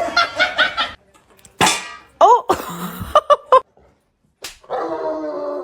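A dog vocalising in a string of short yips and whining calls, some rising and falling in pitch, with a sharp crack about a second and a half in and a longer held whine near the end.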